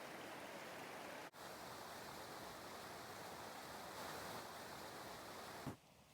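A steady, soft hiss of outdoor noise. Near the end there is a short low thump, after which the hiss drops much quieter.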